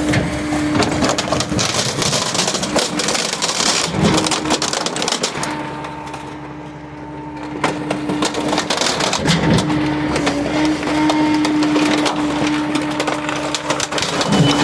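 A dishwasher being crushed and broken up by a running machine: a dense run of cracking and crunching over the machine's steady hum, easing off for a couple of seconds midway.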